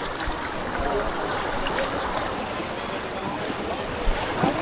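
Steady rushing noise of a swollen flood river, with faint voices in the background.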